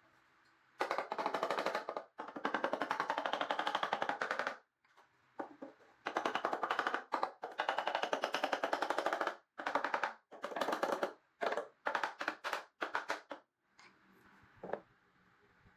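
Power tool rattling in repeated bursts of one to two seconds, each burst a rapid run of impacts, with short pauses between them.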